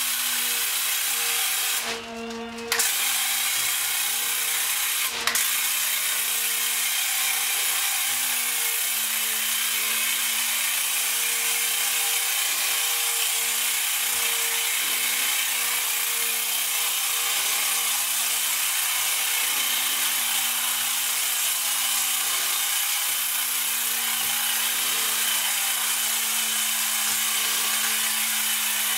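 Graco ProShot cordless airless paint sprayer running with the trigger held: a steady pump hum under the loud hiss of paint atomising from the tip. It stops briefly about two seconds in, then runs on continuously.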